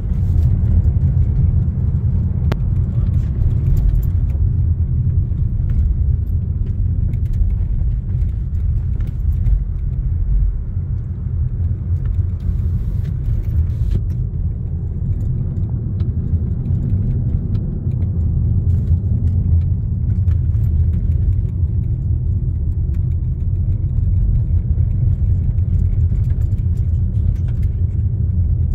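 Steady low rumble of a car driving over a rough unpaved road, heard from inside the cabin.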